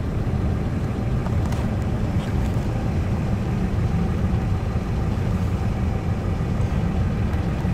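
Steady, deep roar of a large, violent EF5 wedge tornado.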